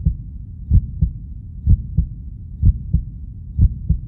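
Heartbeat sound effect: low double thumps, lub-dub, four times about once a second, over a steady low rumble.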